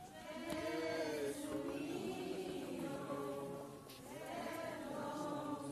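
A group of voices singing a slow religious chant together, with a brief break between phrases about four seconds in.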